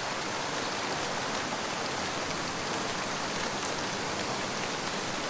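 Steady rain falling: an even hiss with scattered faint ticks of individual drops.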